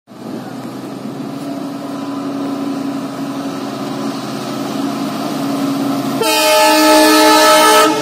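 WDP4B diesel-electric locomotive approaching, its engine drone growing slowly louder, then a loud multi-tone air horn blast starting about six seconds in and lasting nearly two seconds.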